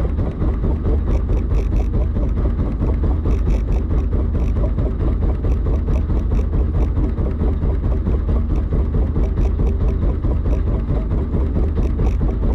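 Fishing boat's engine running steadily: a constant low hum with a faint rapid ticking over it.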